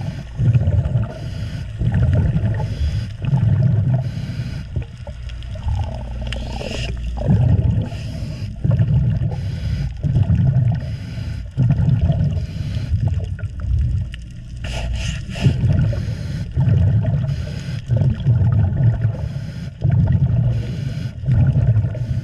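A scuba diver breathing through a regulator underwater: rhythmic bubbling exhalations alternating with hissing inhalations every second or two, heard through the camera housing.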